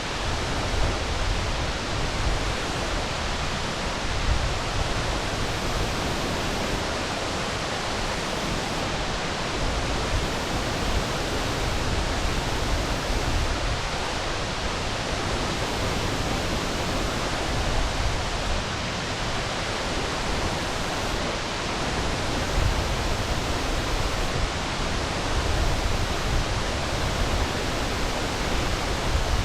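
Sungai Pandan waterfall rushing in a steady, unbroken wash of falling water.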